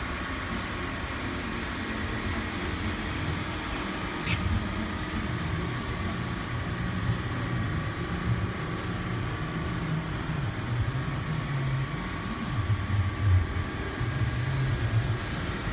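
A vehicle driving on the road: a steady engine and road rumble, with uneven low swells.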